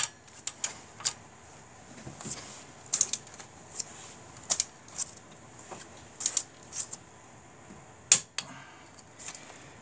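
Ratcheting torque wrench tightening a cylinder head bolt to torque: a string of separate sharp metallic clicks, roughly one every half second to second, with the loudest click near the end.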